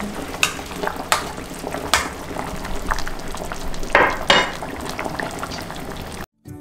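Stainless steel pot of pork with green onion and onion boiling for suyuk, a steady bubbling hiss, with a few sharp clinks of a spoon against the pot, the loudest about four seconds in. The sound cuts off briefly near the end.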